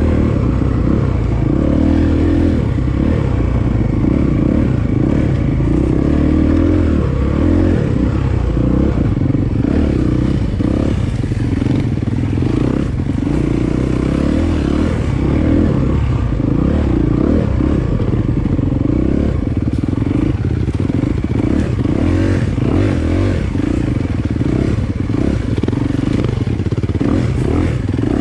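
Dirt bike engine running as the bike is ridden off-road, the engine note rising and falling with the throttle throughout.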